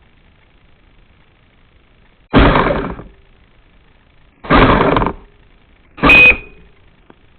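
Panda clever robot vacuum cleaner knocking into an obstacle: three loud thuds about two seconds apart, the last with a short high beep.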